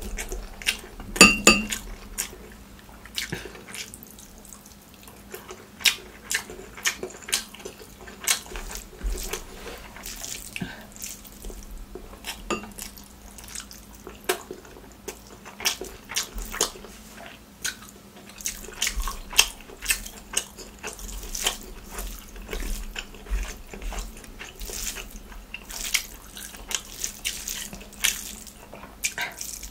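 Wet, sticky eating sounds: rice and curry mixed and squeezed by hand and chewed with lip smacks, as a stream of irregular small clicks. A short ringing clink about a second in.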